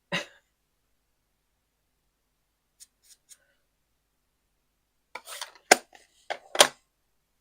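Paper and craft tools handled on a work desk: a few faint ticks, then near the end a cluster of paper rustles and two sharp clicks.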